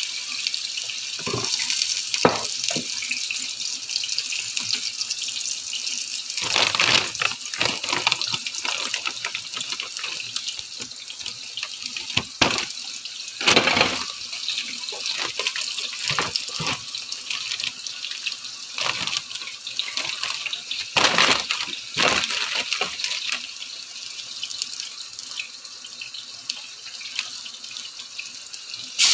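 Food frying in hot pans on a gas stove: a steady high sizzling hiss, with scattered knocks and clatter of pans and utensils.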